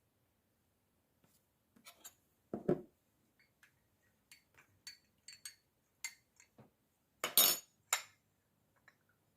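Scattered clinks and knocks of kitchen utensils and glassware being handled. They begin about a second in, with a heavier knock soon after and two louder clatters late on.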